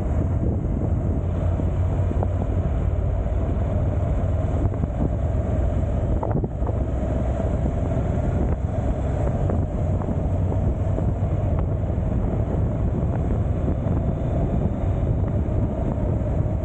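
Steady wind rushing over the microphone of a moving motorcycle, with a low, even rumble of engine and road noise underneath.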